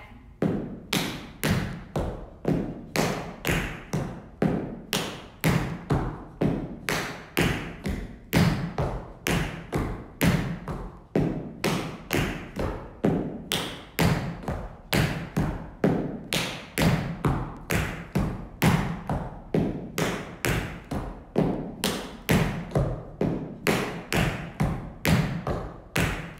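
Tap shoes striking a hard studio floor in a steady run of sharp taps, a few a second, as two dancers perform a tap combination of dig heels and paddle rolls.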